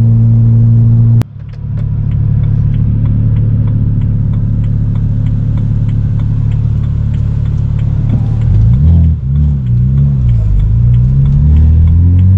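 Twin-turbo BMW's engine heard from inside the cabin, running steadily at cruise. About a second in there is a sharp click and the engine note drops. About eight seconds in the revs waver down and up, then climb steadily near the end as the car accelerates.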